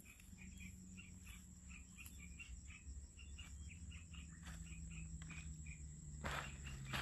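Faint background chirping: short high chirps repeating a few times a second over a low steady hum, with a brief rustle about six seconds in.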